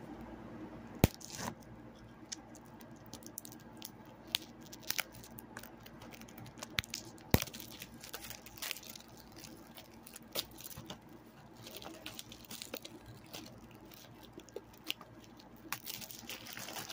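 Irregular clicks, crackles and crinkling of a plastic 4K Blu-ray case and its wrapping being handled, with a few sharp snaps, the loudest about a second in and past the middle.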